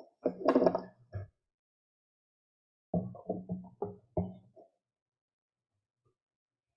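Brief fragments of music: a short full chord near the start, then after a pause a quick run of five or six separate struck notes, with silence between and after.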